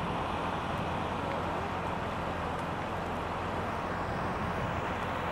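Steady road traffic noise from cars on a nearby road, with a low engine hum underneath.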